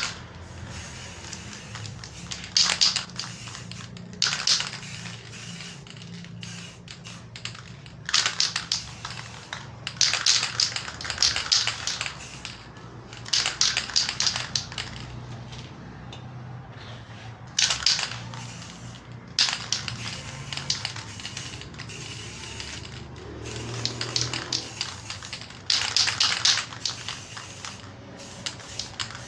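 Repeated bursts of hissing, scratchy noise from surface work on a refrigerator compressor's shell, each burst half a second to two seconds long, over a steady low hum.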